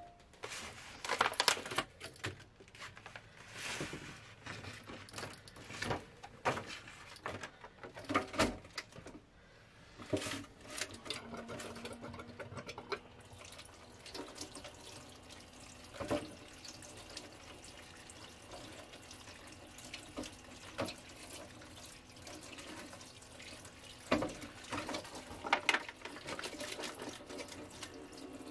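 Tap water running into a stainless steel sink as hands wash something under it, with knocks and clatter against the sink through the first half. A steady low hum sits under the water from about the middle on.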